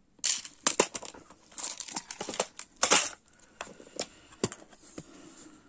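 Small metal charms rattling and clicking inside a clear plastic compartment box as it is picked up and handled. The clatter comes in irregular sharp clicks, thicker in the first three seconds and thinning out towards the end.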